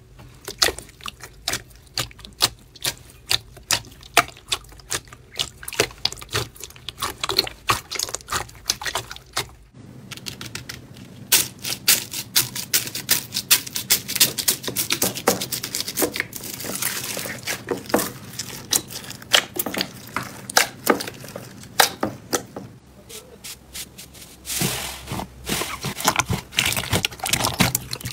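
Hands pressing and kneading slime, making rapid sticky clicks and pops. About ten seconds in it changes to slime mixed with foam beads crackling under the fingers, and near the end to clear slime squelching and popping again.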